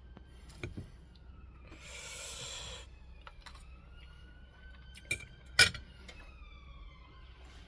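A few sharp clinks of cutlery on a plate, the loudest a little past the middle, and a brief hiss about two seconds in. Through the second half a faint siren wails, its pitch rising slowly and then falling.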